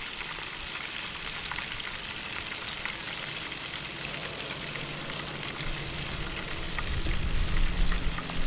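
Chicken deep-frying in hot oil: a steady sizzle with fine crackles throughout. A low rumble swells up near the end.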